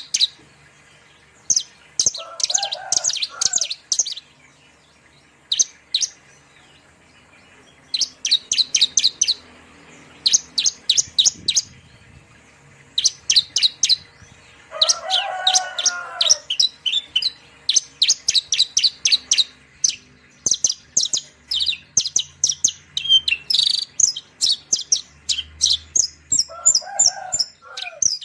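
Javan bush lark (branjangan) singing: bursts of rapid, sharp, high chirps with short gaps between them. A lower warbling phrase comes three times: about two seconds in, about halfway, and near the end.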